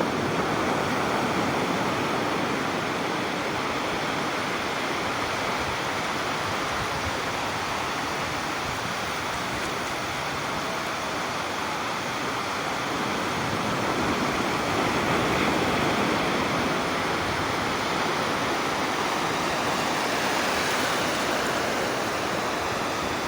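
Ocean surf washing along a shore: a continuous rush of breaking waves that swells a little about two-thirds of the way in.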